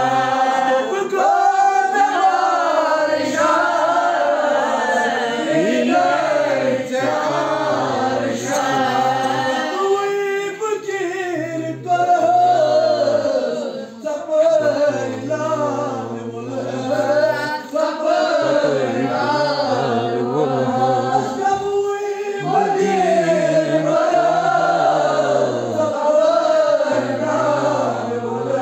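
A group of men and women singing a devotional chant together, in wavering melodic phrases that carry on with only brief breaks.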